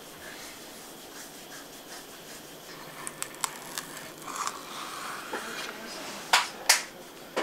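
Crisp baked meringues being lifted and peeled off baking paper: light paper crinkling and scraping with small ticks, then two sharp clicks close together near the end.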